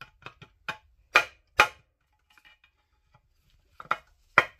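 A hammer striking the end of a flat-ground cut-off screwdriver used as a punch, tapping a needle roller bearing out of a Spicer 4360 transaxle housing. There are about half a dozen sharp taps, the hardest about a second and a second and a half in, then a pause of about two seconds and two more taps near the end.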